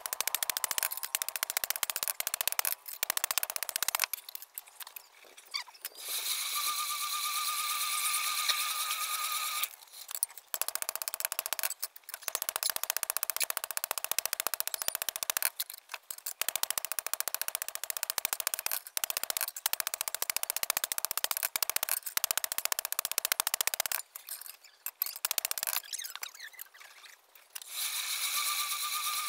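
Hand hammer striking a red-hot blade on a steel anvil block, many quick blows a second in long runs with short pauses. Twice, about six seconds in and near the end, the hammering stops and a steady hiss with a thin whine is heard instead.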